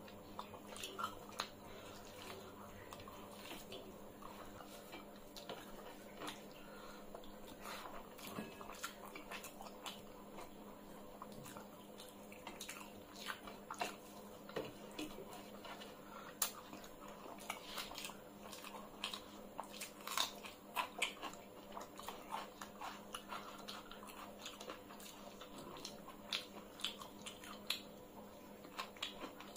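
Close-up eating sounds of two people eating rice and curry by hand: wet chewing, lip smacks and fingers squishing rice, many short irregular clicks all through.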